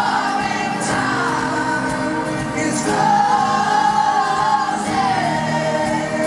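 Live pop boy-band song played over a stadium sound system: singing over the full band, with one note held for a couple of seconds about halfway through.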